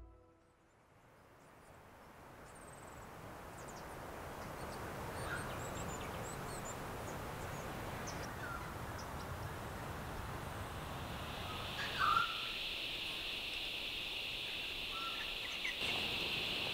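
Outdoor bush ambience fading in: a steady background hiss with scattered short bird chirps and one louder bird call about twelve seconds in. From about eleven seconds a steady high insect drone joins.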